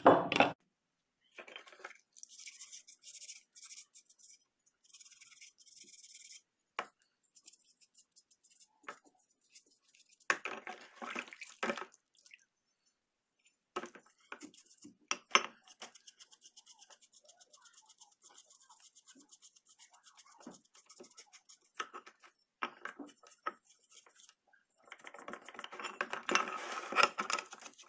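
Intermittent brushing and scraping with scattered clicks and knocks, from hand work on wooden vise parts being cleaned off after drilling.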